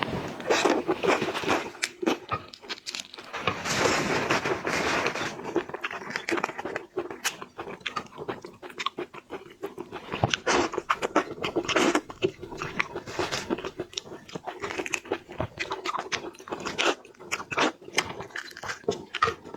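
Shrimp being eaten close to the microphone: irregular crunching and cracking as it is bitten and chewed.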